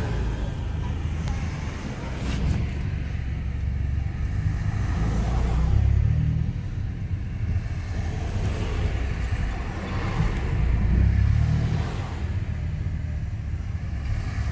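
A car driving along, a steady low rumble of engine and road noise that swells louder twice, about six and eleven seconds in.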